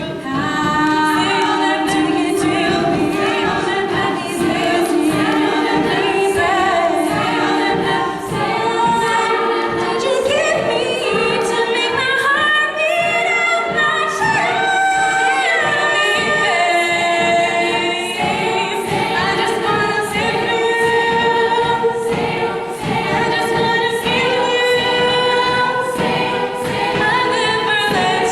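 Women's a cappella group singing in close harmony: several voices, with no instruments.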